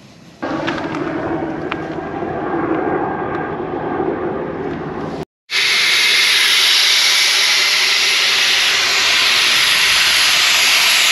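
Air hissing out of a 4WD tyre through a tyre deflator that holds the valve core out for fast deflation, letting the tyre down from about 40 psi toward 15 psi for soft sand. It starts suddenly about half a second in. After a short break about five seconds in, a louder, higher, steady hiss follows.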